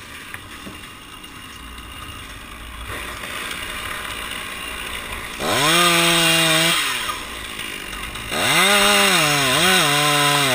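Two-stroke Stihl chainsaw: after a quieter start it is revved up about halfway through, eases off briefly, then is held at high revs cutting into a pine trunk. Near the end its pitch dips and recovers twice as the chain bites into the wood.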